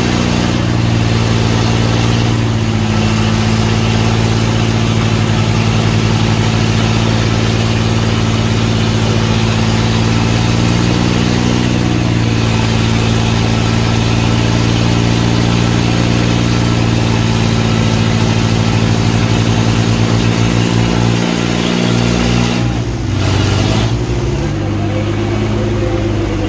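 Diesel tractor engines running hard under load while pulling against each other in a tractor tug-of-war. The engine note is steady but shifts in pitch a few times, sagging and changing most clearly near the end.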